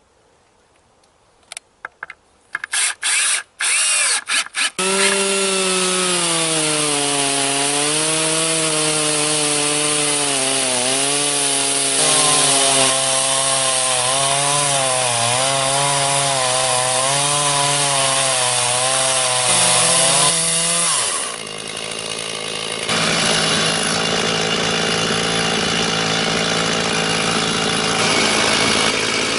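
Chainsaw ripping a hard wild black cherry log lengthwise on a micro chainsaw mill, with a standard chain rather than a ripping chain. After a few short bursts, the engine runs at high speed from about five seconds in, its pitch wavering as the bar loads in the cut. About 21 seconds in the pitch falls away and the sound dips, then it runs again.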